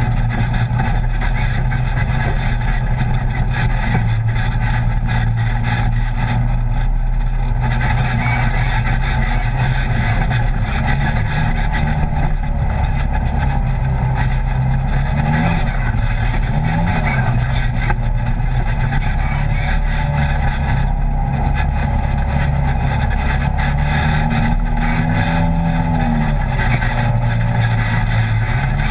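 Polaris RZR side-by-side engine running steadily at trail speed, heard from inside the open cab. Its pitch rises and falls briefly about halfway through, and again with a longer rise near the end, as the throttle is worked on the dirt trail.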